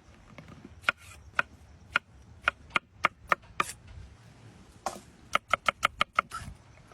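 Sharp chopping strikes of a blade, a few spaced irregularly, then a quick run of about six strikes about five seconds in.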